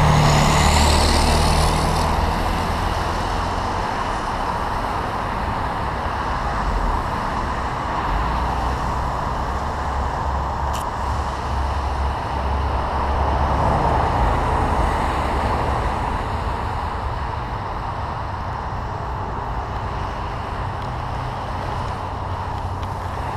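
Motorcycle riding at speed, with wind rushing over the microphone above the engine's low, steady drone. A tractor-trailer passing close alongside makes the first couple of seconds the loudest.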